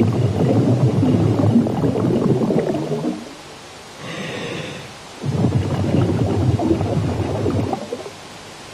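Scuba diver breathing through a regulator underwater: two long gurgling rushes of exhaled bubbles, with a shorter, quieter hiss between them.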